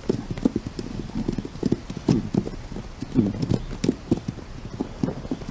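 Wild horses' hooves clopping on the ground in an uneven rhythm, about three or four strikes a second.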